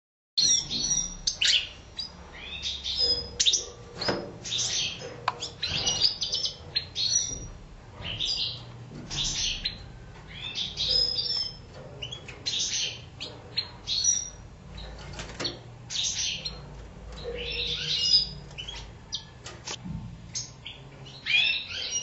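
European goldfinches singing: bursts of quick, high twittering and chirping phrases with short pauses, starting just under half a second in, with a few sharp clicks among them.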